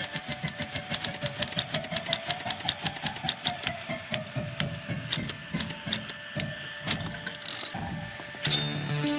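Typewriter keys being struck in a fast, even run of several clacks a second, thinning out after about four seconds. Near the end there is one loud strike with a brief high ring.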